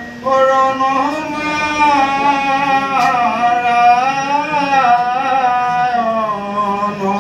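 A man's voice chanting Assamese kirtan verses in a slow sung melody, with long held notes that glide up and down and short breaks between phrases.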